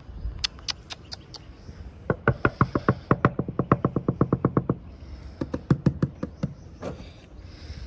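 Knocking on a car: a few light taps, then a fast run of sharp knocks, about eight a second for two and a half seconds, then a few slower knocks.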